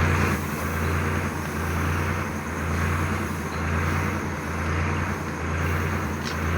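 Steady low machine hum with a rushing noise on top that swells and eases about once a second.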